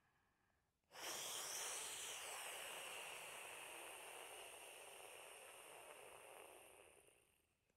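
A woman's long, breathy whispered exhalation of one of the Taoist six healing sounds. It starts suddenly about a second in, holds steady for about six seconds, then fades out near the end.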